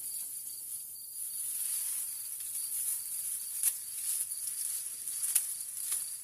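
Steady high-pitched chorus of insects, with three sharp clicks in the second half.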